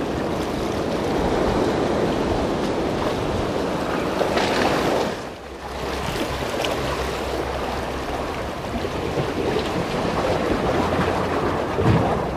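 Sea surf washing against a concrete tetrapod breakwater, with wind buffeting the microphone.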